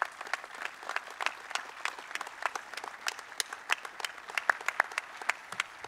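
Audience applauding, with many individual claps standing out.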